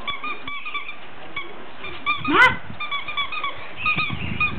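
Squeaky dog toy squeaking in quick, short, high squeaks as a Yorkie puppy chews on it, with one louder rising squeal about two and a half seconds in.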